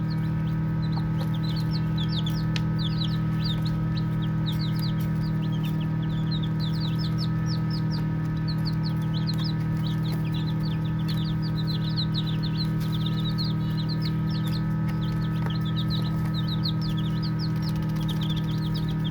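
A group of baby chicks peeping continuously: many short, high, falling chirps overlapping several times a second. Under them runs a steady low hum.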